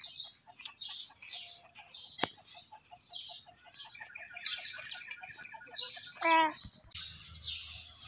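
Small birds chirping over and over in quick, high notes, with a fast run of softer low pips beneath. A sharp click comes about two seconds in, and a brief loud cry cuts through a little after six seconds.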